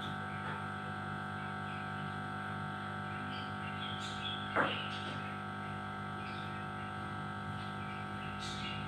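A single short parrot squawk about halfway through, sliding down in pitch, over a steady drone of held tones. A few faint high chirps come near the end.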